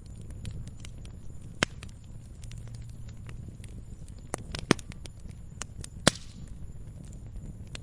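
Campfire burning with a low steady rumble and scattered small crackles. Three loud sharp pops come about one and a half, four and a half and six seconds in; the last is followed by a brief hiss.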